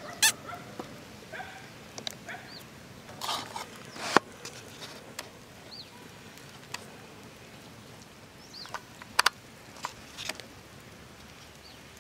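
A steel spoon clinking and tapping against a steel mixing bowl a few times while spice powder is spooned in, the loudest a quick double clink about nine seconds in. A bird gives a short, rising-and-falling chirp every few seconds.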